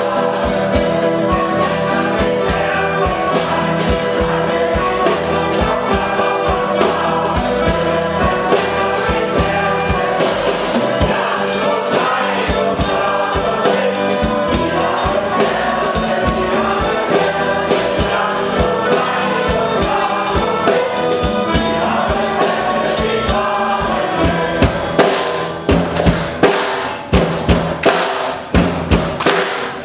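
Shanty choir of mixed voices singing in chorus, accompanied by accordion and acoustic guitar with a steady beat. Near the end the singers clap along in time.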